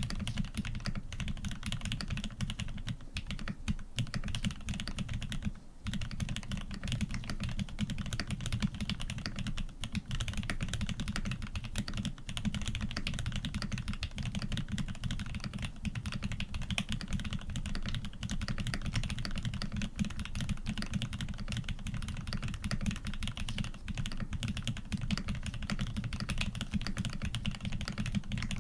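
Fast continuous typing on a custom mechanical keyboard with a polycarbonate plate, lubed Aquaking linear switches and PBT keycaps, giving a deep, muted keystroke sound. The keys rattle along densely, with a brief pause about six seconds in.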